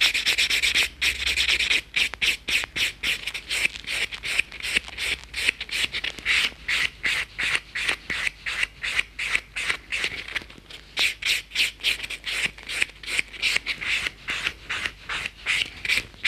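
White buffing block rubbed in quick back-and-forth strokes across an acrylic nail, about four strokes a second, smoothing the filed surface.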